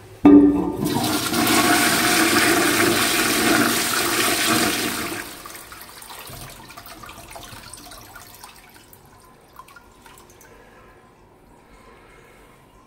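Wall-hung Royal Doulton toilet pan flushed from a high-level concealed cistern: a powerful, loud rush of water that starts suddenly, runs about five seconds, then drops to a faint trickle as the bowl settles.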